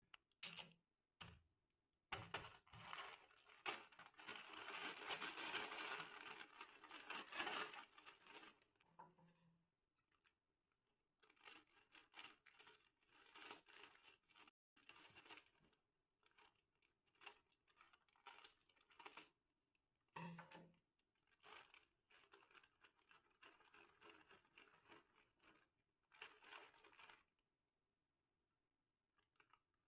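Plastic snack packet being torn open and crinkled in irregular bursts of rustling, the longest running from about two seconds in to about nine seconds in, then shorter crackles.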